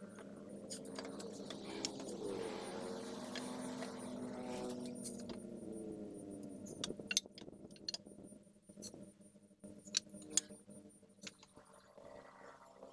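Wooden branch sticks clicking and knocking against each other as they are handled and rope is wound around one, with sharp knocks scattered through, most of them in the second half. A low steady hum sits behind the knocks in the first half and fades out about halfway through.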